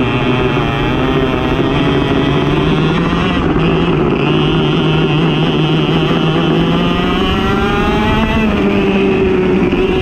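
Racing go-kart engine running hard at steady high revs, its pitch rising about three-quarters of the way through as it speeds up.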